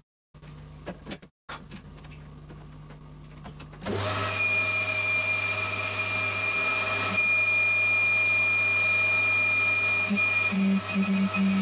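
Lathe running while a boring bar cuts into the underside of a cast iron piston. The sound drops out briefly near the start and stays quieter for the first few seconds. From about four seconds in it is louder, and a steady high squeak from the cut holds for about six seconds.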